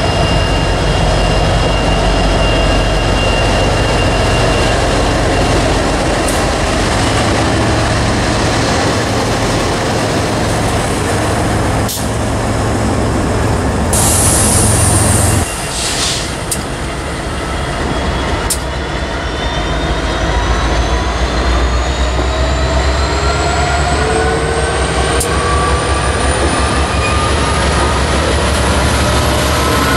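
BNSF freight train passing close by: an EMD SD70MAC and trailing diesel locomotives rumble past, then the cars roll by, with a brief hiss about halfway. In the second half a whine climbs steadily in pitch as another set of locomotives passes.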